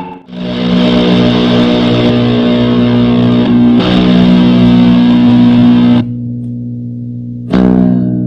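Electric guitar played through a custom fuzz and reverb pedal, giving low, heavily fuzzed chords that sustain. The chord is struck just after the start and again near four seconds, drops to a quieter ring at six seconds, and is struck once more near the end and left to decay.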